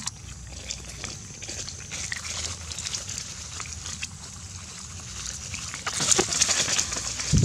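Macaques scuffling over a piece of vegetable held in a gloved hand: rustling of grass and dry leaves with many small clicks and scrapes, busier and louder near the end, which closes with a short low thump.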